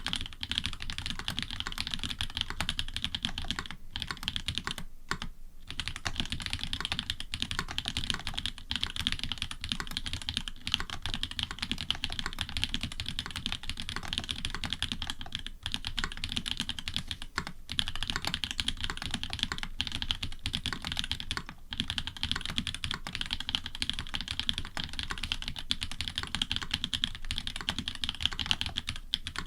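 Fast, continuous typing on a custom Orion v2.5 mechanical keyboard with Cherry switch bottom housings and Cream switch tops and stems, FR4 plate, plate foam and GMK keycaps: a dense stream of keystroke clacks with a few brief pauses.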